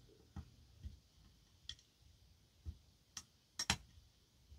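Faint, irregular metallic clicks and ticks of a lock pick and tension wrench working the pins of a Goal S lock cylinder, a close double click about three and a half seconds in being the loudest. The picker suspects he has overset a pin, and the lock feels crunchy.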